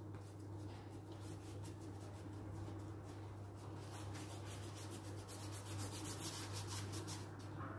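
Paintbrush scrubbing black paint onto paper in many quick, faint strokes, which come thicker in the second half, over a steady low hum.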